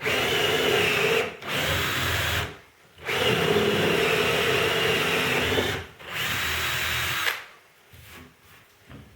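Power drill boring a large hole through a tabletop, run in four bursts with short pauses between them as the bit cuts the last of the way through.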